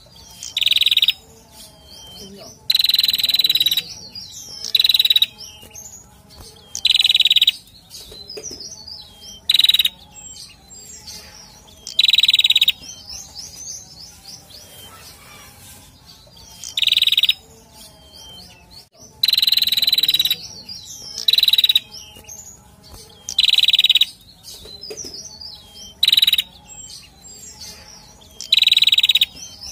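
Male prenjak, a small songbird, calling over and over: loud calls of about half a second to a second, repeated every couple of seconds, with softer high chirps between them.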